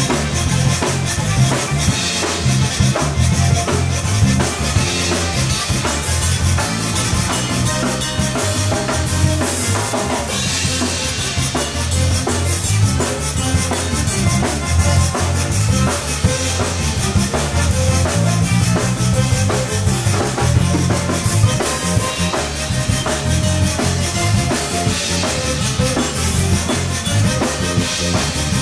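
Zydeco band playing live: accordion over a drum kit and electric bass, with a rubboard scraping a steady beat.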